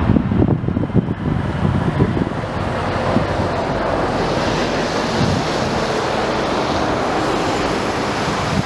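Airbus A320-200's jet engines on the landing rollout, a steady rushing noise that swells about three to four seconds in. Wind buffets the microphone in gusts during the first two seconds.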